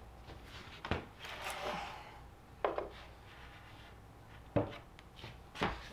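Faint handling sounds of a plywood lid fitted with black plastic pipe elbows on a wooden workbench: four light knocks spread over a few seconds, with a short scrape after the first.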